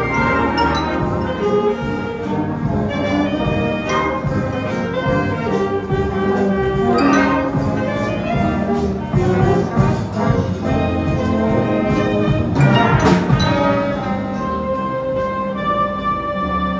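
High school concert band playing live, trumpets, clarinets and low brass sounding together in held, moving chords. Two loud accented hits stand out, about seven and thirteen seconds in.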